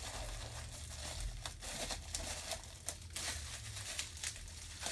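Packaging crinkling and rustling in irregular short crackles as items are handled and moved around in an opened box.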